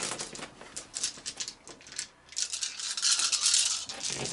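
A handful of custom board-game dice clicking against each other as they are tipped out of a plastic bag onto a play mat, then rattling when they are shaken in cupped hands for the last couple of seconds.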